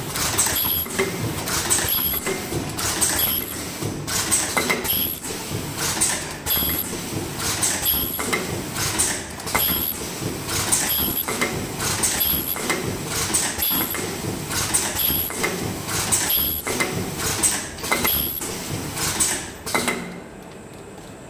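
Ultrasonic mask ear-loop welding machine with a folding and counting conveyor in automatic operation: a rhythmic cycle of rapid mechanical clacking from its pneumatic actuators, with short hissing bursts about every second and a half. The sound drops away in the last second.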